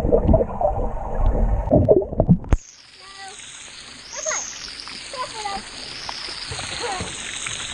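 Pool water heard through a waterproofed action camera: muffled, heavy underwater churning that cuts off suddenly about two and a half seconds in as the camera breaks the surface. After that comes a lighter hiss of splashing and dripping water, with faint voices.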